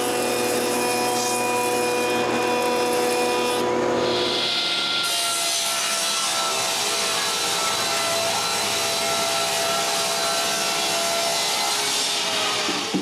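Woodworking power tool running steadily while cutting wood. Its tone shifts about four seconds in, and it stops abruptly at the very end.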